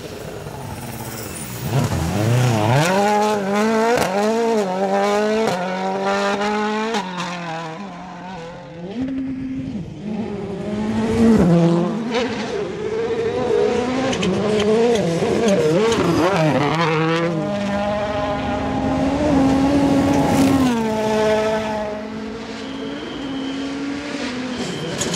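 Rally cars' engines revving hard as they pass one after another, the pitch climbing and then dropping again and again with each gear change, with sharp cracks scattered through.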